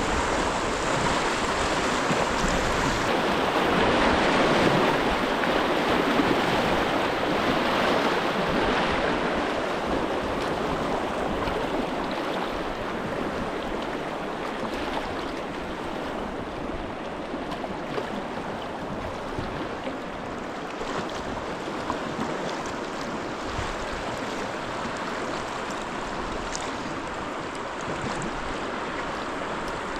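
River current rushing steadily, a continuous wash of moving water that is loudest a few seconds in and then eases a little.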